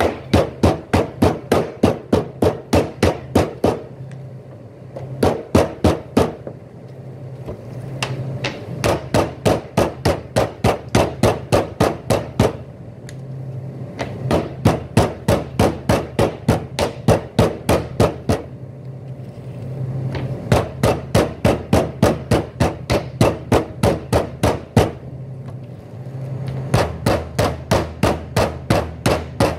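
Meat cleaver chopping through beef ribs on a plastic cutting board: quick, even strikes about three a second, in runs of a few seconds with short pauses between. A steady low hum runs underneath.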